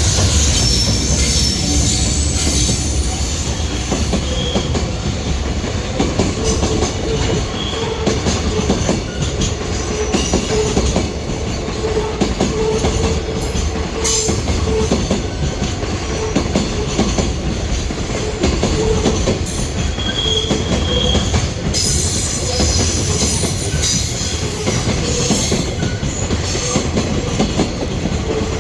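Container freight train rolling past close by, a long steady run of wheel rumble and clatter on the rails with short wheel squeals now and then.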